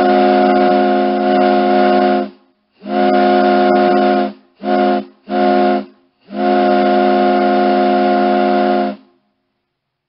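Ship's horn sounding a chord of several steady tones in a series of blasts: a long blast, a shorter one, two quick short blasts, then another long blast that stops about nine seconds in.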